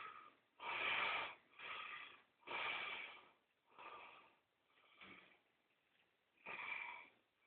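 A sleeping man's wheezy, snorting snore breaths, short and coming about once a second, growing fainter and further apart. After a pause of about a second, one more breath comes near the end.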